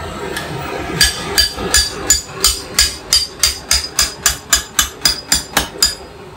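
Butcher's knife being honed on a sharpening steel: a run of about eighteen quick metal-on-metal strokes with a light ring, starting about a second in and getting faster.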